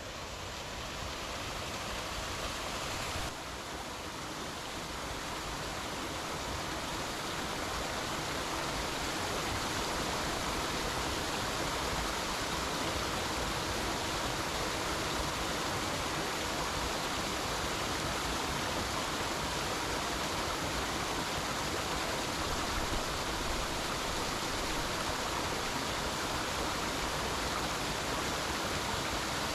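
Gale-force wind blowing in a steady rush, buffeting the microphone.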